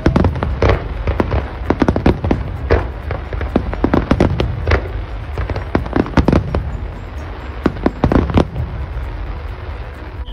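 Aerial firework shells bursting in a dense, rapid run of sharp bangs over a low rumble, the loudest bangs coming every second or two.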